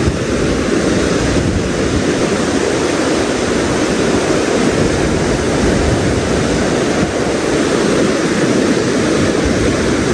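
Rushing mountain stream: a steady, loud wash of fast-flowing water.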